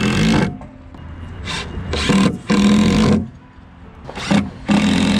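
Plywood sheets scraping and sliding against each other in several short, loud drags, wood rubbing on wood.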